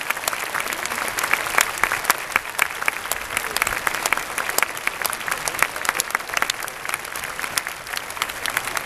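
Stadium crowd applauding: many hands clapping steadily, with sharp nearby claps standing out from the spread-out clapping of the stands.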